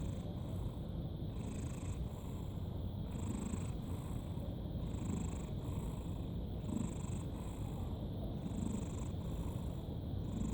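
Domestic cat snoring softly in its sleep, an even rhythm of breaths in and out, about one breath cycle every one and a half to two seconds.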